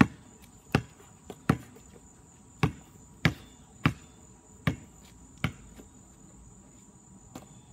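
Basketball being dribbled on an asphalt driveway: eight sharp bounces in the first five seconds or so, then a fainter one near the end. A steady high insect drone runs underneath.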